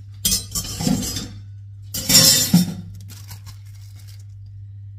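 Dishes and glassware clinking and clattering in two bursts of about a second each, the second the louder, over a steady low hum.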